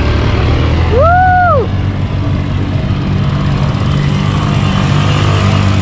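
Quad bike (ATV) engine running steadily with a low, even hum. About a second in, a brief pitched tone rises and falls once above it.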